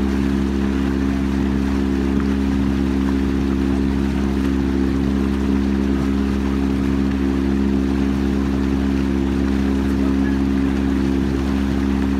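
Boat motor running at a steady speed, a constant drone with no change in pitch.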